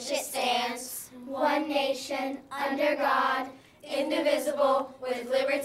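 A group of children reciting the Pledge of Allegiance in unison, in short chanted phrases of about a second each with brief pauses between them.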